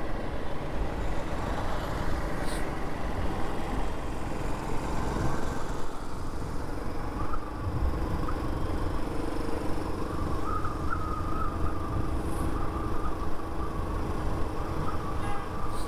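Motorcycle running along a road, with a steady engine drone and wind rumble. A faint wavering whistle comes in about halfway through and carries on to the end.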